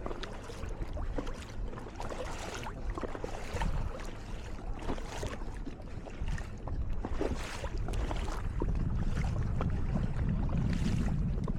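Wind buffeting the microphone over water from a boat at sea, with a steady low rumble that grows louder near the end and occasional small splashes.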